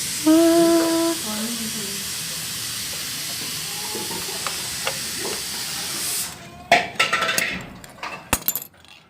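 A steady hiss that cuts off suddenly about six seconds in, followed by several sharp knocks and rattles.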